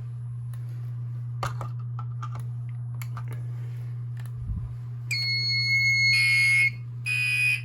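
Fire alarm going off about five seconds in: first a steady high electronic tone, then the taped-over Gentex Commander 3 horn buzzing in two pulses with a short break between. Before that come light clicks and a low thump as a smoke detector is set off.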